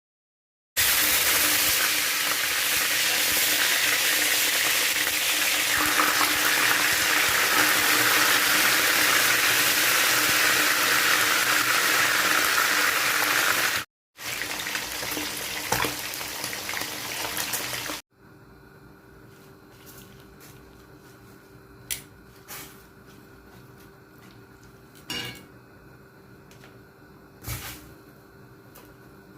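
Daing na bangus (marinated milkfish) frying in hot oil: a loud, steady sizzle with spattering oil, cut off abruptly twice. In the last third the sizzle is much fainter, with a few sharp clicks.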